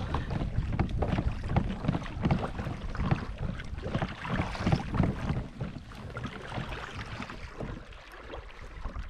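Water slapping and splashing against the hull of a plastic sit-on-top fishing kayak, with wind buffeting the microphone. The splashing is busiest for the first five seconds or so, then eases off.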